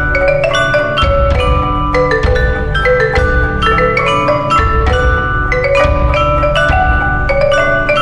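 Mallet percussion ensemble: a Yamaha vibraphone and a marimba played together, the marimba by two players, in a steady stream of quick struck notes with tones ringing on between the strikes.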